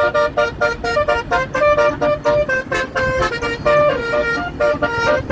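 Tour bus basuri telolet horn playing a fast melody of short, clear notes, several notes a second, with a few longer held notes.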